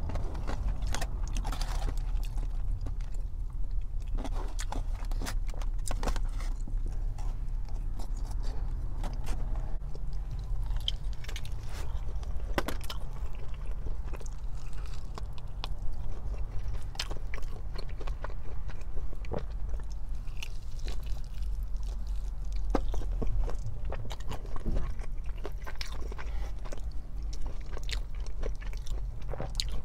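Close-miked eating: bites and chewing of crispy Korean fried chicken, with many small sharp crunches and clicks, over a steady low hum.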